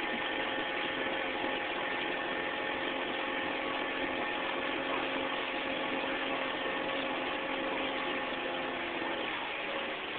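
A small boat's motor runs steadily under way, its hum sitting over a constant hiss of wind and water. The engine's hum drops away about nine seconds in, leaving the hiss.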